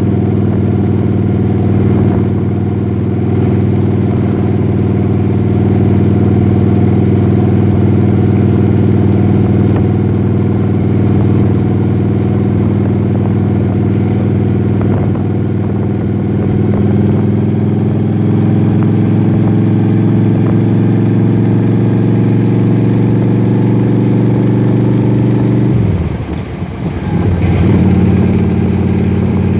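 Vehicle engine running while under way, a steady loud hum whose pitch climbs slowly as it speeds up. Near the end the engine note drops away for a moment and then picks up again.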